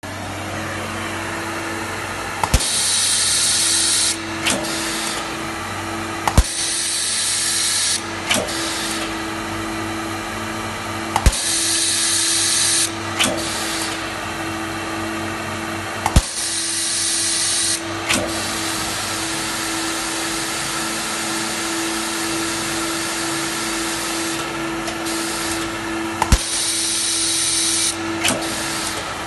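Taylor CDM9 CNC capacitor-discharge stud welder welding studs onto a metal plate: a sharp crack at each weld every few seconds, several followed by a second or so of high air hiss, over the steady hum of the machine.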